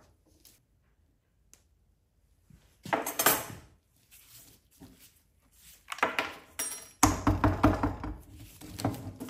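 Clatter and knocks of a chainsaw's plastic housing and tools being handled on a wooden workbench. There is a short burst about three seconds in, then heavier handling from about six seconds in, loudest near the end.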